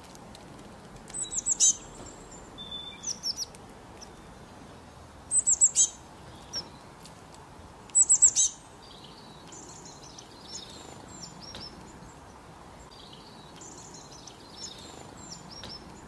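Songbirds calling: three short, loud bursts of quick, high, falling notes, a few seconds apart, then softer high twittering phrases.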